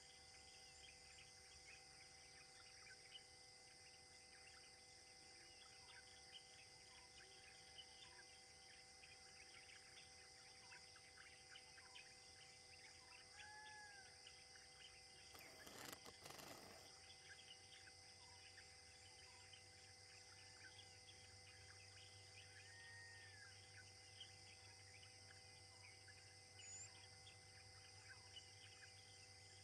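Faint forest ambience, close to silence: a steady high insect drone with occasional short bird chirps. A brief rush of noise comes about sixteen seconds in, and a low hum joins a couple of seconds later.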